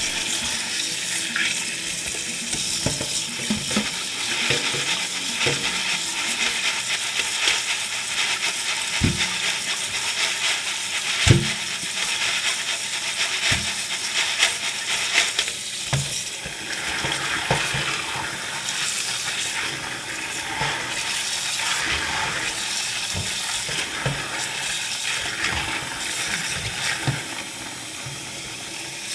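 Tap water running onto pinto beans in a plastic colander while a hand stirs them, the beans rattling and shifting under the stream, with a few louder knocks against the colander.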